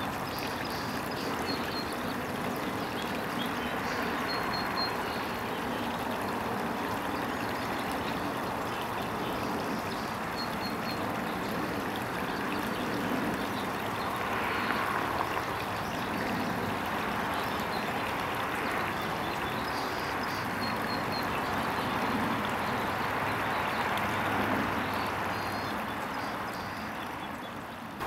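Steady rushing outdoor background noise, with faint short high chirps from small birds every few seconds.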